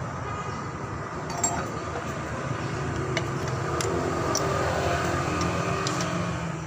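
A few sharp metallic clinks of parts and tools being handled while a power sprayer pump is reassembled, over a steady low background hum.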